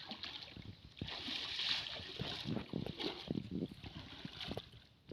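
Pond water splashing and sloshing, with irregular knocks and thumps; the splashing is strongest about a second in.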